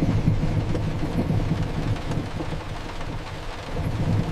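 Heavy rain with a strong low rumble underneath that swells and fades unevenly, dipping about three seconds in and building again near the end.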